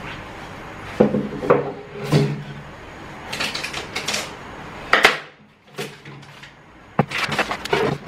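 Kitchen utensils knocking and clattering on a wooden cutting board: a few separate knocks in the first couple of seconds, a sharp knock about five seconds in, and busier clatter near the end.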